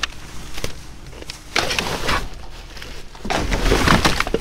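Plastic trash bags rustling and crinkling as they are shifted around among cardboard boxes, in two bursts: one about a second and a half in, and a louder, longer one a little after three seconds in.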